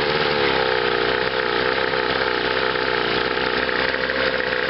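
Two-cylinder Chrysler two-stroke outboard motor running steadily under load on a test wheel, with a slightly wavering pitch. It is misfiring: it runs mostly on one cylinder, and the top cylinder cuts in and out.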